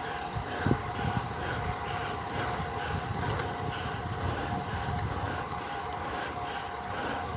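Wind buffeting the microphone in low gusty rumbles, over a steady whir that pulses about twice a second.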